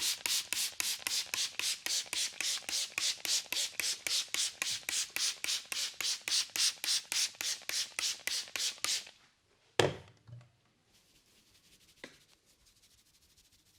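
Hands rubbing briskly over hair and scalp in a head massage: fast, even scratchy strokes at about four a second that stop about nine seconds in. Almost a second later comes one loud sharp crack, then two fainter clicks.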